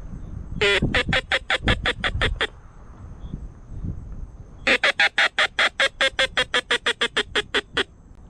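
A duck call blown in teal-hunting style: two fast, evenly spaced runs of sharp quacks, the first about ten notes long and the second, a couple of seconds later, about twenty.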